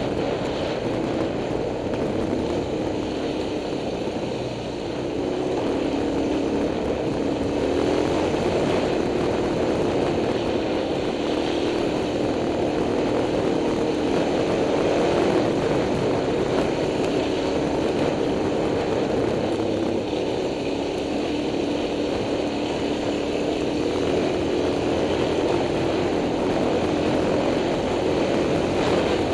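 Dirt bike engine running on a trail ride, its pitch wavering up and down as the throttle is worked, with a brief drop about four seconds in.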